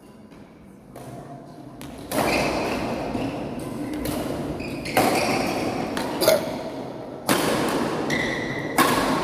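Badminton rackets striking a shuttlecock during a rally: about five sharp hits a second or more apart, the first about two seconds in, each ringing on in a large hall.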